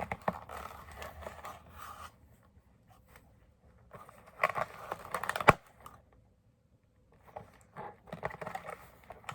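Doll box packaging being handled: bursts of crackly rustling and scraping as the doll is worked free of tape and ties, with a sharp click about five and a half seconds in.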